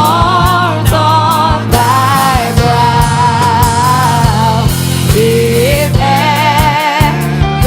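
Worship band and singers performing a gospel hymn. Held vocal lines with vibrato ride over a steady bass and regular drum hits.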